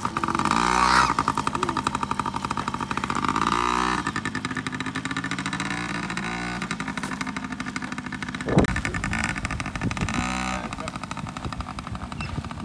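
Yamaha PW50 mini bike's 49cc two-stroke single running under a rider, its pitch rising and falling several times as the throttle is opened and eased off. A brief knock comes about two-thirds of the way through.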